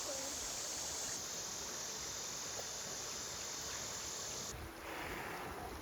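Steady riverside ambience: flowing water with a high insect drone, which cuts off abruptly about four and a half seconds in.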